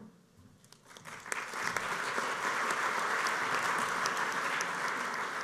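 Audience applauding. The clapping starts about a second in and then holds steady.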